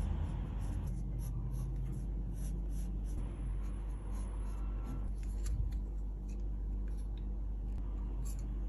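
Coloured pencil scratching over journal paper in short back-and-forth shading strokes, with a few light clicks and a low steady hum underneath.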